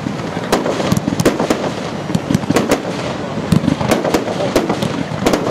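Aerial fireworks going off in quick succession: a rapid, irregular run of sharp bangs and cracks from shells bursting overhead, over a continuous noisy background.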